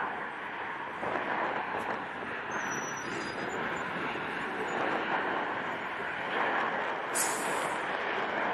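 Jet engines of two fighter jets flying a formation display pass, a steady roar.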